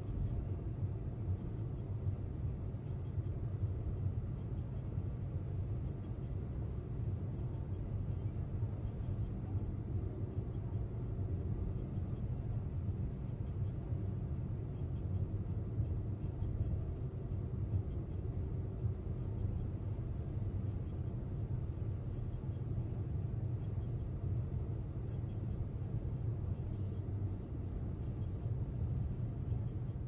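Steady low road rumble of a car driving on a snow- and slush-covered road, heard inside the cabin, with faint light ticking over it.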